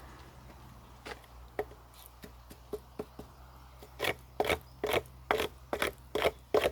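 Rasping, scraping strokes against wood: a few scattered scrapes, then from about four seconds in a quick, even run of about two to three strokes a second.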